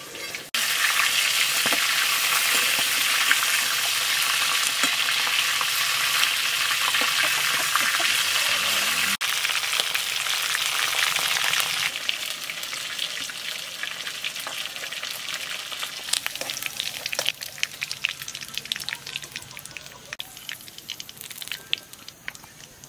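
Battered chicken intestine pakoda deep-frying in hot oil in a wok: a loud, dense sizzle for the first twelve seconds or so, then a quieter sizzle with scattered crackles that fades toward the end.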